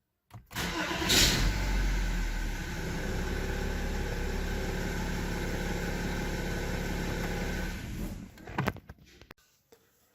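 BMW engine cranking briefly and catching with a flare about a second in, then idling steadily. It is switched off about eight seconds in, followed by a few clicks. The start shows the no-crank, no-start fault cured by a replacement CAS module.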